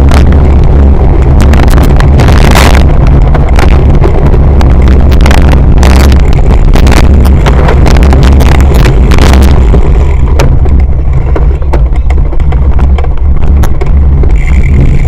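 Wind rumble and rattling picked up by a camera mounted on a cyclocross bike ridden over a rough dirt course: a loud, distorted low roar with many sharp knocks from the bumps, easing somewhat about ten seconds in.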